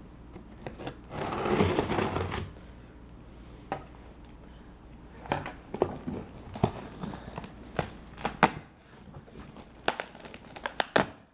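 A cardboard shipping box being torn open, with a loud rip of tape or cardboard about a second in. Then crinkling and a series of scattered clicks and knocks as the packaging is handled.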